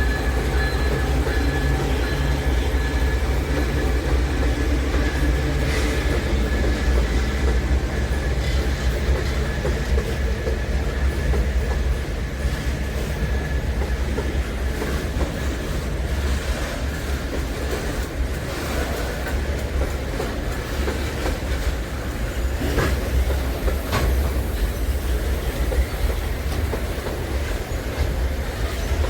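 Heavy freight train rolling across a bridge: a continuous low rumble of wagons with the steady hum of the diesel locomotives fading out in the first half, and wheels clicking over rail joints with a little wheel squeal later on.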